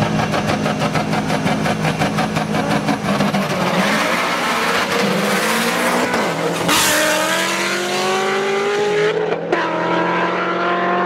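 Street-race car engine held at high, steady revs with a rapid pulsing, then accelerating hard: its pitch climbs, drops sharply at a gear change about seven seconds in, climbs again and drops at a second shift about two and a half seconds later.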